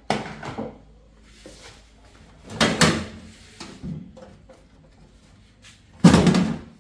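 Several short bursts of scraping and sliding from the microwave oven's sheet-metal casing being handled as it is opened up after its screws are out, with quiet gaps in between.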